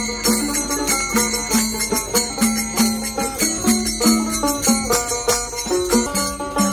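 Kirtan devotional music: small hand cymbals (kartal) chiming on a steady beat over a plucked banjo melody.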